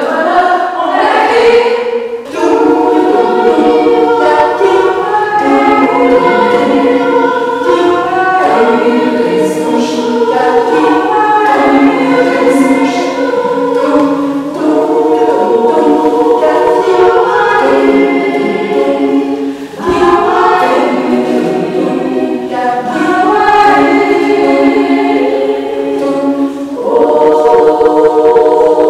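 A small group of women singing unaccompanied in close harmony, holding chords with several voices at once. The singing breaks off briefly twice, about two seconds in and about twenty seconds in, between phrases.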